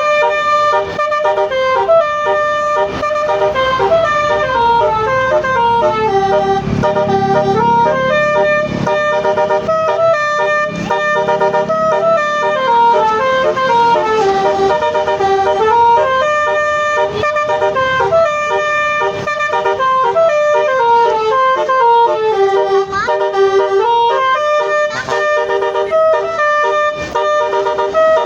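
Bus 'telolet' musical air horn of the basuri type playing a multi-note melody. The notes step down and climb back up in a tune that repeats without a break.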